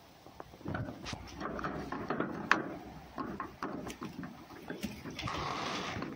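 Irregular clicks, scuffs and rustles of a red fox moving about in straw close by, with a longer rustle near the end.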